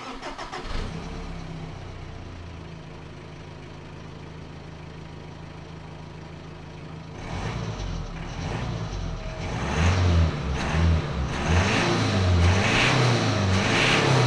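Subaru Impreza 2.0-litre boxer turbodiesel on its stock exhaust, heard at the tailpipe: idling steadily, then from about seven seconds in, revved in a series of short, louder blips.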